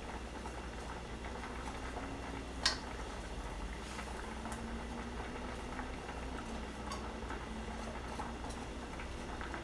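Bread slices frying in margarine in a frying pan, a steady low crackling sizzle, with a pot of pasta water boiling alongside. One sharp click about two and a half seconds in.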